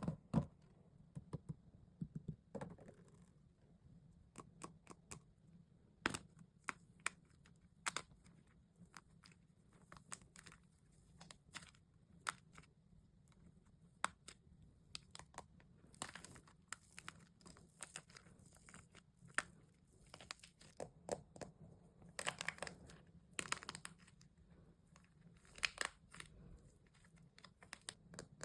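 A hardened wax coating cracking as it is pressed and peeled off a squishy toy, with sharp, irregular snaps and a few longer crinkling stretches.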